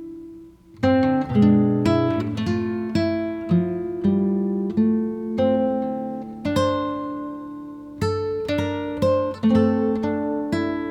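Background music of plucked acoustic guitar, picked notes ringing and fading one after another, with a brief lull about a second in.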